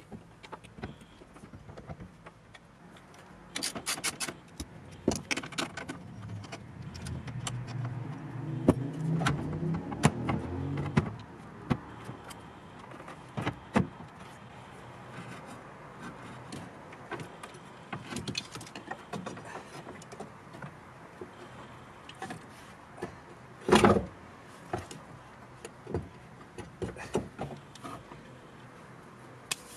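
Hands and tools working the hydraulic boot-lid pump unit loose from its mounting in a car boot: scattered metallic clicks, clinks and knocks, with a louder stretch of rubbing and handling noise between about seven and eleven seconds in and one loud knock near the end.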